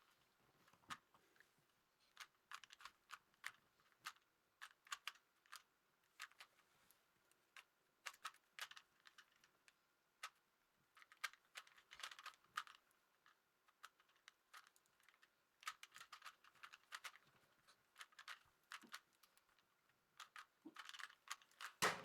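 Faint, irregular clicking of a 3x3 Rubik's Cube's layers being turned quickly, a few clicks a second, while one side is being solved.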